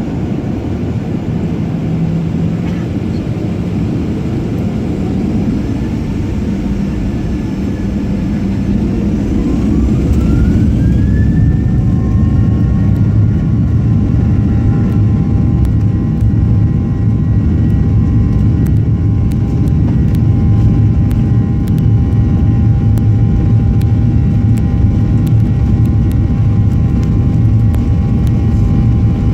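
Jet airliner engines heard from inside the cabin: a steady low rumble, then about ten seconds in a turbine whine rises in pitch and settles into a steady high whine as the engines spool up, and the noise grows louder and stays up, as at the start of the takeoff roll.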